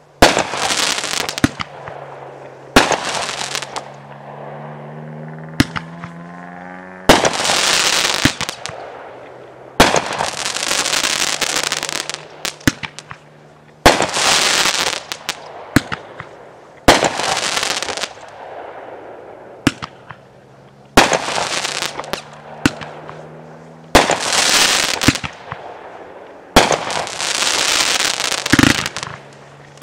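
Brothers Fireworks "Badge Of Honor" aerial fireworks firing shot after shot: a loud bang roughly every three seconds, each followed by a hiss of burning stars that fades over a second or two, with smaller sharp cracks in between.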